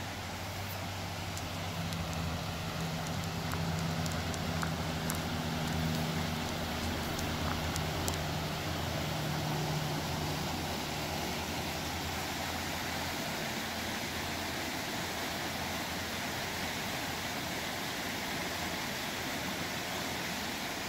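Steady rushing of a river running over rapids. A low droning hum sounds underneath for roughly the first ten seconds, then fades.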